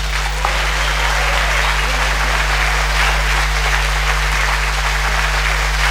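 Audience applauding steadily right after the band's last chord dies away, over a steady low electrical hum from the sound system.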